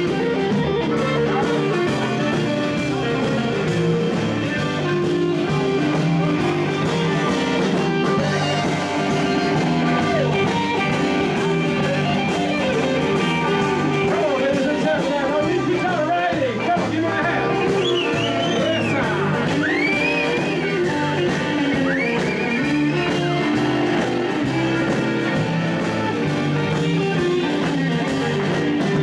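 Live band playing: electric guitars, accordion, electric bass and drums together, with a lead line bending and sliding in pitch through the middle.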